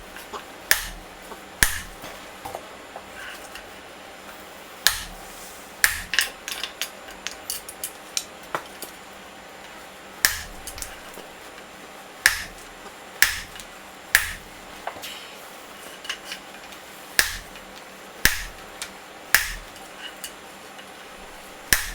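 Hammer blows on hot steel at the anvil while forging a bottom axe form: single sharp strikes spaced roughly a second apart at an uneven pace, with lighter taps in between and a short metallic ring after each.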